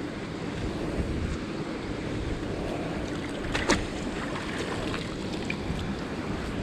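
Steady wind noise on the microphone while a magnet-fishing rope is worked in a canal, with one sharp knock a little past halfway.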